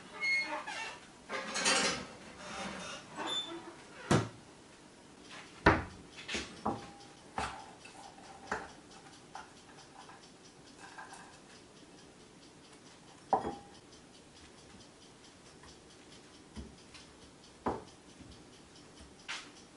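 Kitchen dishware being handled: a busy patch of handling noise, then a series of separate sharp clinks and knocks, a few of them ringing briefly. The sounds are a dark pot and a ceramic bowl as cooked rice is tipped and scraped from the pot into the bowl with a spatula.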